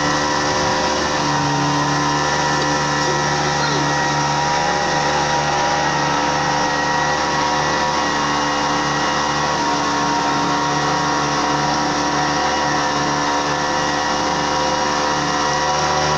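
Small motorboat's engine running steadily at a constant speed, a continuous droning hum heard from aboard.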